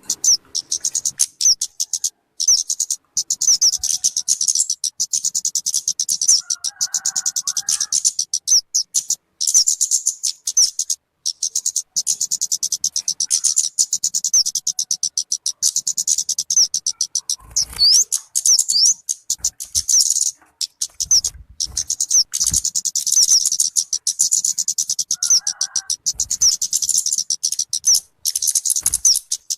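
Recorded song of the bird known as talokan or kemade, used as a lure or training call: long runs of rapid, high-pitched chirping trills, broken by short pauses.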